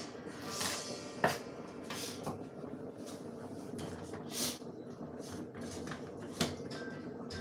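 Scattered knocks and clatters of kitchen work, among them a kitchen knife set down on a wooden chopping board, with short rustles between them over a faint steady hum.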